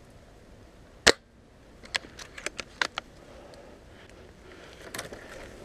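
Dry twigs and leaf litter crackling in undergrowth: one sharp snap about a second in, then several lighter clicks and crackles.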